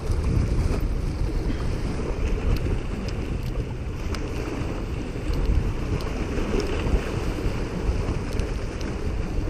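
Steady wind rumbling on the microphone over small waves washing against shoreline rocks, with a few faint clicks.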